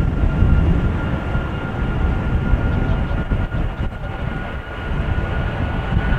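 Twin-engine Airbus A330 freighter's turbofan jet engines at takeoff power on the runway roll: a heavy, fluctuating rumble with a steady high whine over it.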